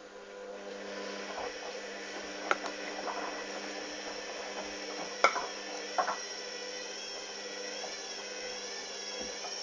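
Hoover Dynamic washing machine running: a steady motor hum and whine starts up and builds over the first second, with three sharp knocks at about two and a half, five and six seconds in. Near the end a high whine wavers in pitch.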